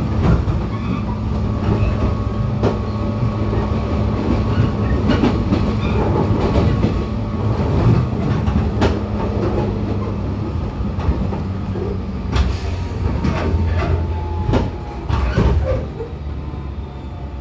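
Running sound heard inside the motor car of a JR 415 series (500 subseries) electric multiple unit: a steady drone from the traction motors and gearing, with the wheels clicking over rail joints. A thin whine falls slowly in pitch over the last few seconds, and the sound eases off a little near the end.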